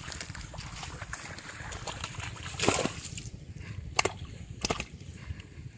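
Shallow muddy water splashing and sloshing as hands grope through flooded weeds, feeling for fish, with three sharper splashes in the second half.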